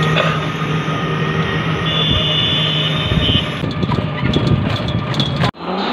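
Auto-rickshaw engine running steadily with road noise, heard from inside the cab. A high steady tone sounds for about a second and a half, a couple of seconds in, and the sound cuts off suddenly near the end.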